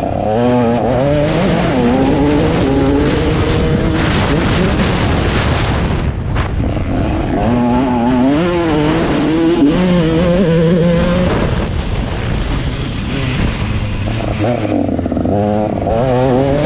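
KTM 150 SX two-stroke motocross bike engine revving hard, its pitch repeatedly rising and falling as the throttle is worked, with a brief dip about six seconds in.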